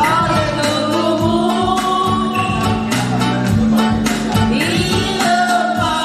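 Music: a singing voice over a steady beat and bass line.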